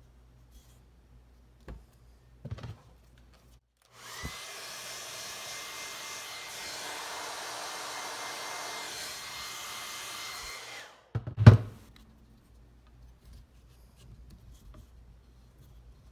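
Handheld hair dryer running for about seven seconds, a steady blowing hiss with a faint high whine, heating nylon fuel line to make it pliable. It switches off and a loud clunk follows at once. A few light knocks come before it starts.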